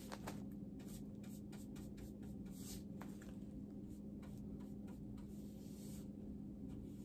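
Square paintbrush (Zibra) dragging chalk paint along a dresser's front frame: a run of short, soft brushing strokes, over a steady low hum.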